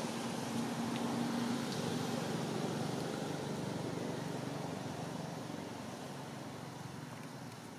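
A passing motor vehicle's engine, a steady hum with a low tone that is loudest about a second in and then slowly fades away.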